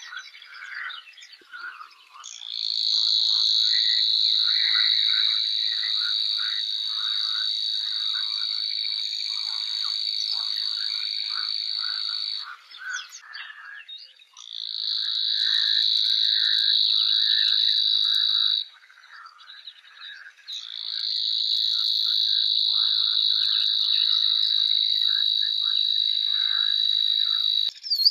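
A chorus of calling frogs: a loud, high, steady trill held for about ten seconds, breaking off and resuming twice, for about four and then about seven seconds, over a busy background of many shorter, lower calls.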